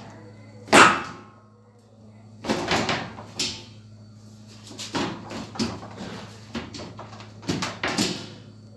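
A series of hard knocks and clatters, with one sharp bang about a second in, over a steady low hum.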